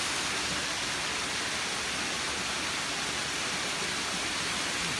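Steady rushing and splashing of water from a stone fountain.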